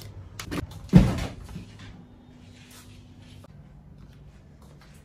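A couple of light clicks from a wall light switch, then a single thud about a second in as a wooden door is pushed shut.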